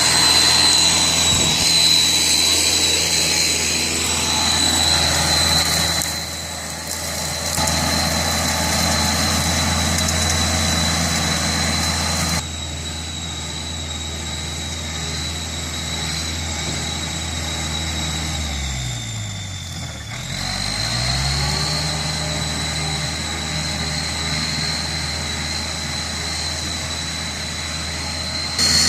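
Kubota L5018 tractor's diesel engine running steadily. About twenty seconds in, its pitch dips sharply and comes back up within about two seconds.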